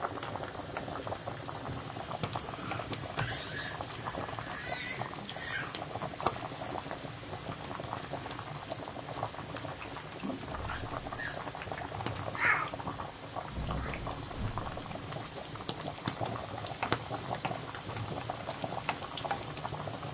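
A pot of spaghetti boiling hard, then mushrooms and chopped garlic sizzling in a frying pan, a dense steady crackle throughout, with a few short squeaks.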